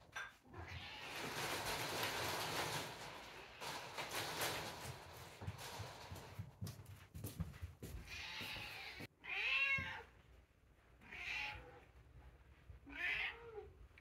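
Domestic cat meowing three times, each short call rising and falling in pitch, a second or two apart, the first the loudest. Several seconds of rustling come before the meows.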